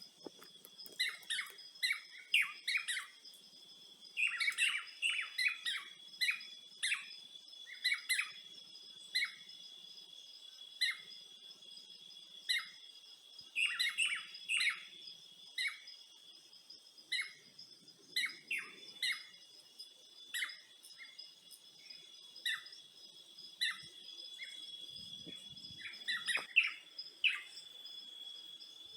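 Birds chirping in short, repeated calls, about one or two a second, over a steady high-pitched drone.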